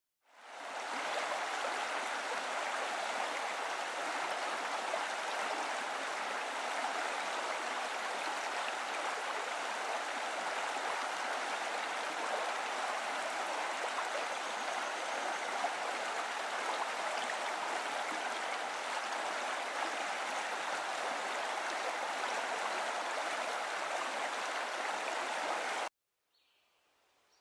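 A steady rushing noise of running water, fading in over the first second and cutting off suddenly near the end.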